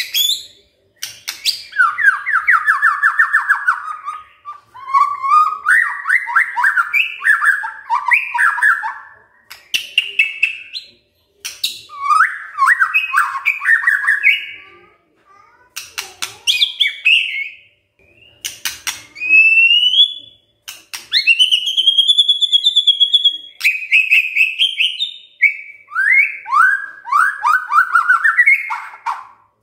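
Male white-rumped shama singing in phrases with short pauses between them: fast rattling trills, clear whistles that rise and fall, and sharp clicks. The longest held whistle comes about two-thirds of the way through.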